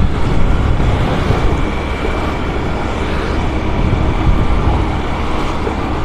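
Road and traffic noise while riding a scooter through town streets: a loud, steady rush with a deep rumble.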